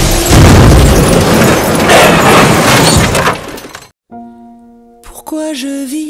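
Car crash: a loud, dense crash of shattering glass and impacts for about three and a half seconds, which then cuts off. After a brief silence, soft music of held chords begins, with a melody that bends slightly in pitch.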